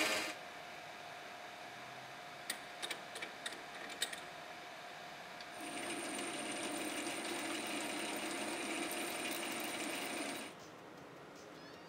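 Small metal lathe running with a steady hum, a few sharp ticks about two and a half to four seconds in. From about halfway a turning tool cuts the aluminium part, a louder rough cutting noise with a thin high tone, which stops abruptly near the end.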